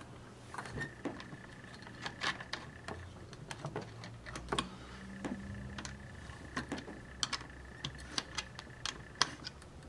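Irregular small clicks and scrapes as a quarter turns the metal top lock of a plastic gumball machine to loosen it.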